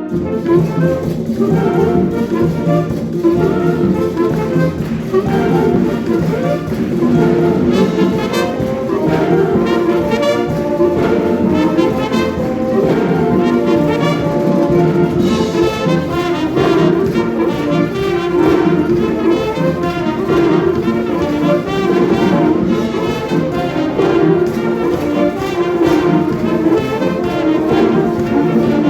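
Concert wind band playing, with the brass section to the fore: trumpets and trombones sustaining full chords over the ensemble.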